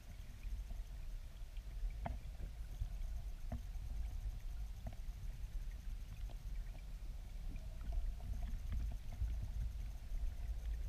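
Flowing river water heard underwater: a steady low rumble of current, with a few faint sharp clicks scattered through it.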